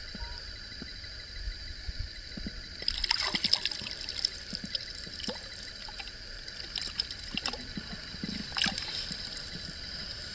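Water trickling and splashing in small irregular bursts over a steady hiss; the splashes are busiest about three seconds in and again past eight seconds.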